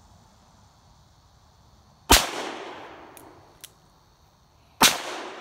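Two handgun shots fired about two and a half seconds apart, each a sharp crack that rings out and dies away over about a second. A faint tick follows the first shot.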